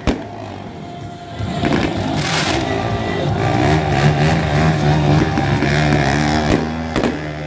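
Quad ATV engine running with a wavering pitch, joined by the hiss of fountain fireworks about two seconds in and again near the end.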